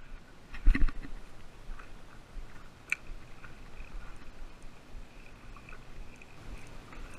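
Shimano Nasci 2500 spinning reel being cranked against a hooked fish on a light rod, with a faint, uneven whine from the reel over a low rumble. Handling knocks break in: a heavy thump about a second in and a sharp click near three seconds.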